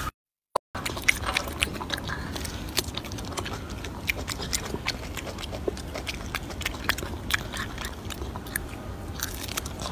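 Golden snub-nosed monkey chewing and biting tangerine pieces at close range: irregular sharp clicks and smacks, several a second, over a low steady background. There is a brief gap of silence at the very start.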